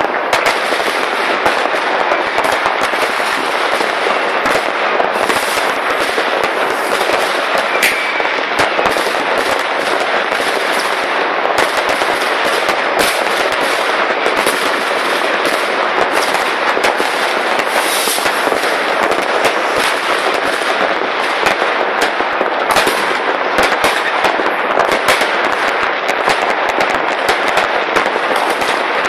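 Many fireworks and firecrackers going off across a town at the same time: a dense, unbroken crackle of overlapping bangs and pops.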